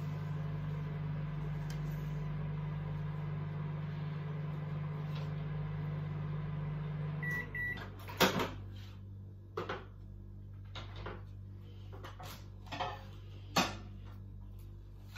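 Microwave oven running with a steady hum while reheating cold rice. The hum stops about seven seconds in and two short beeps sound; then a sharp click as the door opens, followed by several knocks and clatters.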